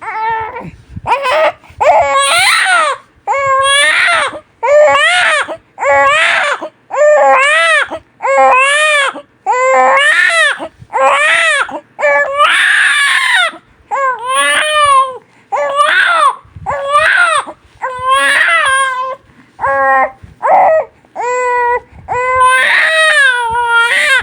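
Newborn baby crying hard: a steady run of short wails, about one a second, each rising then falling in pitch, with brief pauses between.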